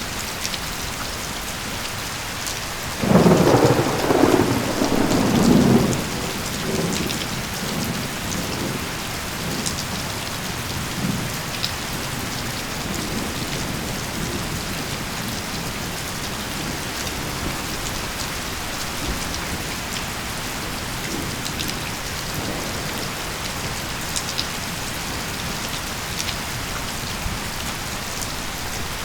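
Steady rain falling. About three seconds in, a loud rumble of thunder breaks in suddenly, holds for about three seconds, then dies away into fainter low rumbling under the rain.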